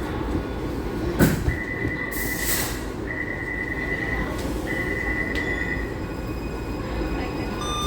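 Taipei MRT C341 metro train running with a steady rumble, with a sharp click about a second in and a brief hiss. The wheels squeal on a high note in three stretches of about a second each.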